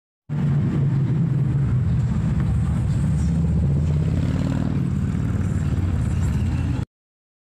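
Street traffic: a steady low engine rumble from vehicles. It starts suddenly and cuts off suddenly near the end.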